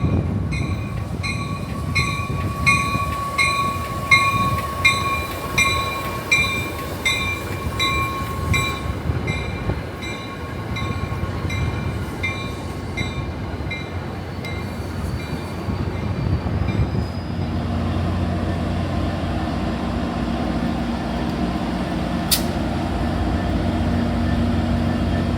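Train bell ringing about twice a second for the first two-thirds or so, then stopping, as an Amtrak train comes in. Then the steady low hum of the EMD F59PHI diesel-electric locomotive's engine running at the platform.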